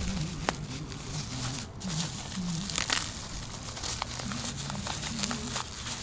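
Packaging crinkling and tearing, with scattered sharp crackles, as a parcel is unwrapped by hand.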